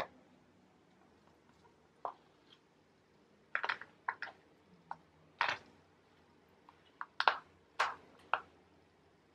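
Metal fork clicking and scraping against plastic takeout bowls while sauced pasta is stirred and picked, with soft wet squishes of food. Short scattered sounds, busier and louder in the second half.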